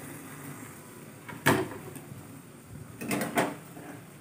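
A sharp knock about a second and a half in, then two softer knocks close together near the end, over faint room noise.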